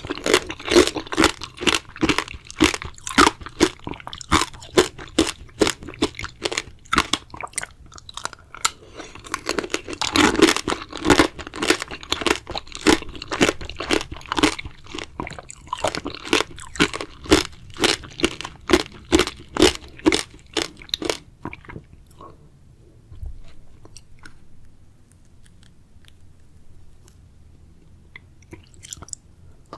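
Close-miked chewing of strawberries: crunching bites and chews about two to three a second, stopping about two-thirds of the way through and giving way to a quiet stretch with a few faint sounds.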